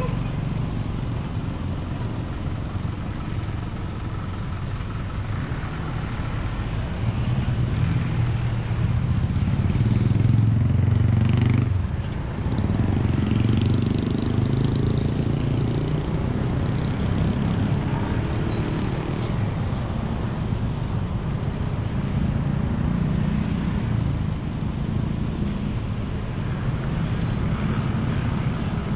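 Street traffic: motor scooters and cars passing with their engines running, a steady rumble that swells louder for several seconds in the middle.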